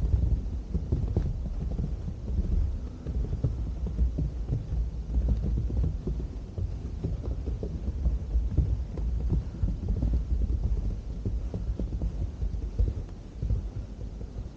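Wind buffeting the camera's microphone: an uneven low rumble that swells and fades, easing off near the end.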